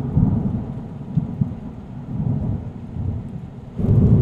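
Thunder rumbling, easing off in the middle and swelling into a louder roll near the end.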